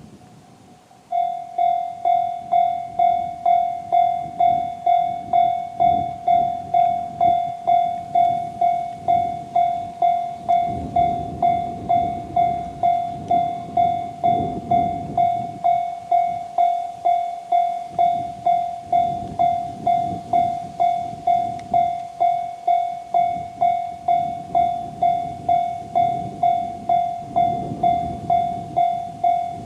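Japanese railway level-crossing alarm sounding the JR standard electronic bell tone. It starts about a second in and repeats steadily, about two strikes a second.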